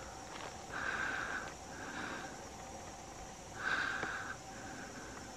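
A person breathing through the nose close to the microphone: two slow breaths, each a louder hiss followed by a softer one, with a single faint click about four seconds in.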